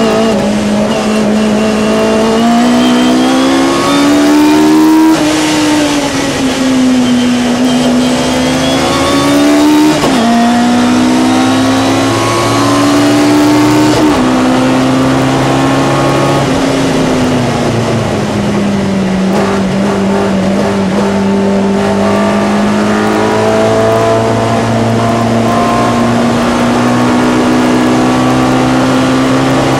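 Ford Anglia race car's engine heard from inside the cabin at full throttle, revving high and climbing in pitch. Its pitch drops sharply on upshifts about 5, 10 and 14 seconds in. It eases lower around the middle, then pulls steadily up again.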